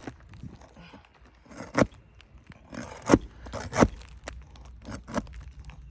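Roof snake nail remover working under asphalt shingles to pull out old roofing nails: metal scraping against the shingles, with about seven sharp knocks and clicks, the loudest two close together a little past the middle.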